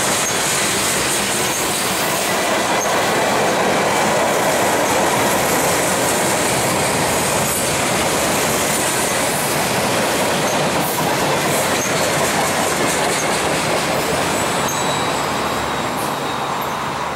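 Freight cars of a Norfolk Southern manifest train (tank cars, a gondola, a covered hopper) rolling past: a steady rumble and rattle of steel wheels on the rails, with a faint high wheel squeal. It eases off slightly near the end as the last car goes by.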